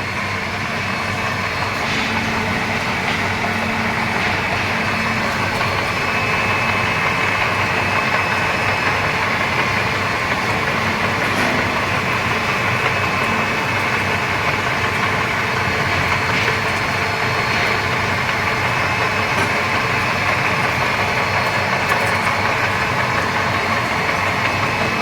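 Z3050×16/1 radial drilling machine running steadily: an even mechanical hum with a constant high whine above it.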